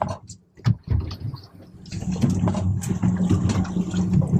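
Boat's outboard engines idling, a steady low hum, with a short dip and a single knock in the first second.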